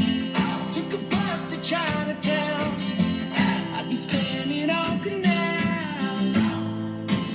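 A song with singing and strummed guitar playing on a 2009 Pontiac G6's six-speaker factory stereo during a sound test.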